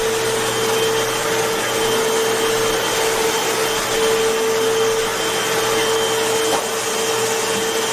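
Hoover Whole House Elite dual-cyclonic upright vacuum (UH71230) running with its brush roller on: a loud, steady motor whine over a rush of air.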